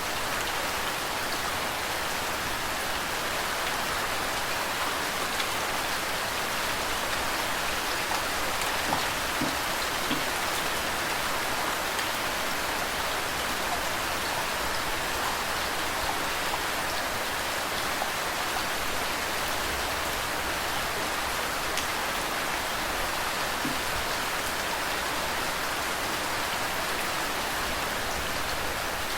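Steady rain with flowing water: an even, unbroken hiss of rainfall with scattered individual drop ticks and a slightly louder spatter about nine seconds in.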